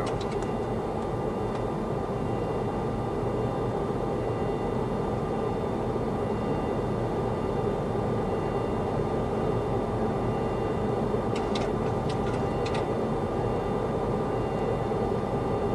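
Steady flight-deck noise of a Boeing 737-300 on approach with gear down: an even rush of airflow and engine noise with faint steady tones over it. About eleven seconds in come a few short, sharp clicks.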